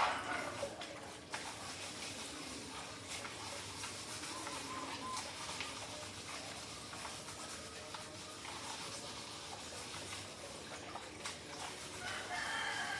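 A rooster crowing: one crow trails off just at the start and another begins near the end, with faint chirps and small clicks between.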